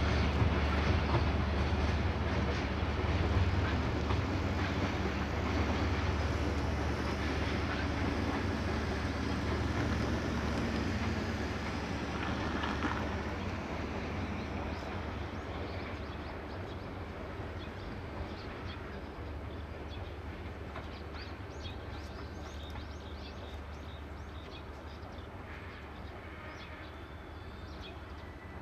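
Diesel-hauled freight train running with a low engine rumble that gradually fades as it draws away.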